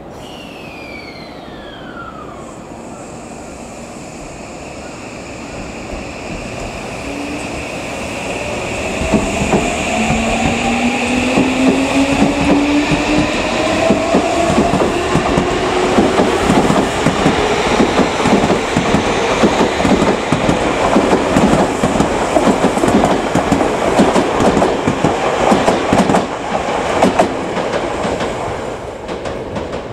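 Tokyu 2000 series electric train pulling out of the station, its newly replaced VVVF inverter whining in several tones that rise in pitch as it speeds up. From about nine seconds in, the wheels clack rapidly over the rail joints as the cars pass. A brief falling whine sounds at the very start.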